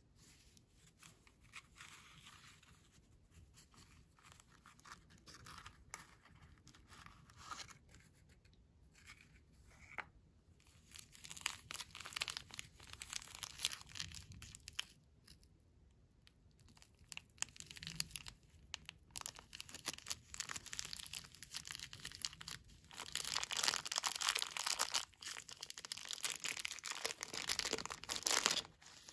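A small cardboard toy box being opened, then a clear plastic toy bag crinkling and tearing as it is handled and pulled open. The crinkling grows denser and louder, and is loudest in the last several seconds.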